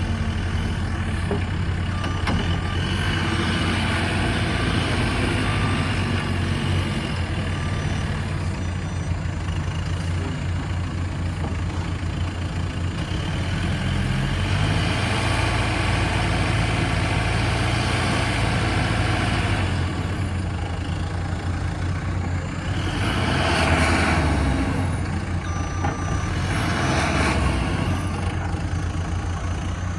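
JCB 3CX backhoe loader's diesel engine running, its pitch shifting now and then, with two louder surges of rushing noise a few seconds before the end.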